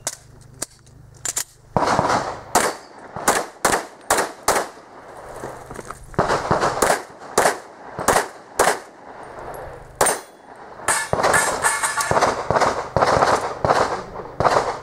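Pistol shots fired in quick strings of about two to three a second, each a sharp crack with a short echo, with two pauses of about a second as the shooter moves between positions.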